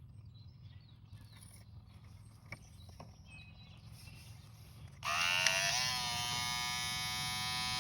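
A small electric fuel pump, used for fuelling an RC plane, starts about five seconds in. It whines up to speed, then runs with a steady, even whir. Before that there are only a few small handling clicks.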